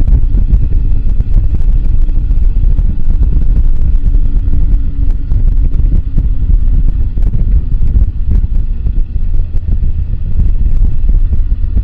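Moto Guzzi V85TT's air-cooled V-twin engine running steadily while the bike rides over rough, rocky off-road ground, under a heavy low wind rumble on the microphone, with scattered short knocks.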